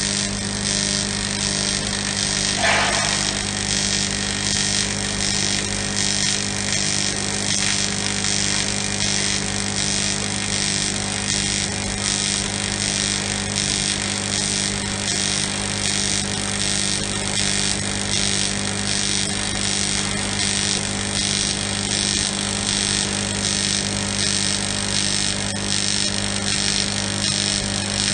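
TIG welding arc from a WP 500 TIG welding machine, burning steadily: a loud electrical buzzing hum under a hiss that pulses at a regular rate.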